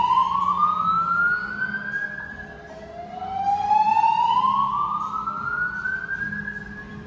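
Fire alarm voice-evacuation speakers sounding the slow whoop evacuation tone: a tone that rises steadily over about three seconds, drops back and climbs again, twice here. This is the alert signal that alternates with the recorded evacuation message.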